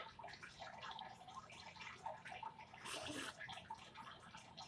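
Faint, irregular mouth sounds of someone eating hot noodles: chewing, lip smacks and slurping, with one louder, hissier slurp about three seconds in.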